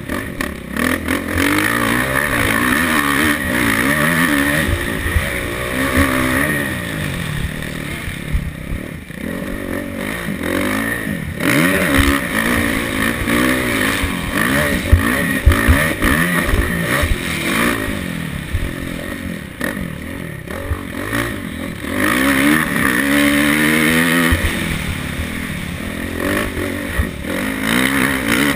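Motocross bike engine under race throttle, revving up and easing off again and again as the rider accelerates and shifts, the pitch climbing with each pull. It drops off the throttle for a few seconds twice, near the middle and about two-thirds through.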